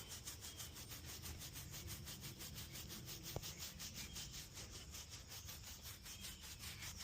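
Faint, quick and regular strokes of a grooming brush rubbing over a donkey's coat, several a second, with a single small click about three and a half seconds in.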